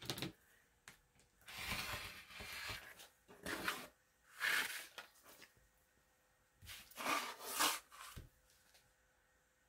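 Clear acrylic quilting ruler and fabric being pressed, slid and repositioned on a cutting mat: a click, then several short bursts of scraping and rustling with pauses between.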